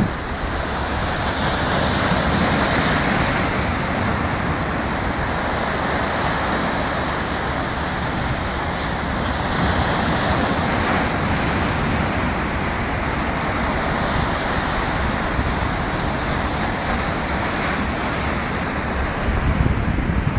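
Rough sea surf breaking and washing over a rock breakwater: a continuous rushing wash that swells louder now and then as waves crash on the rocks.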